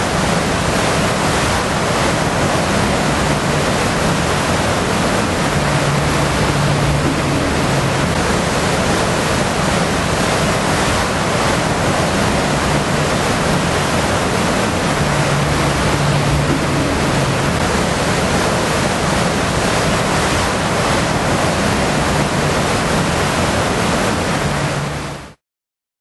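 Muddy flash-flood water rushing out of a slot canyon and across a desert wash, a loud, steady rush that cuts off abruptly near the end.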